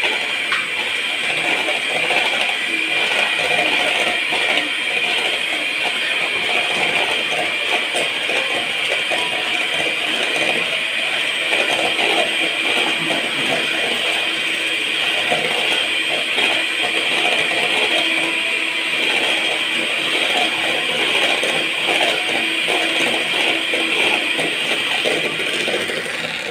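Electric hand mixer running steadily, its wire beaters whisking eggs in a steel bowl, with a fine continuous rattle of metal beaters against the bowl.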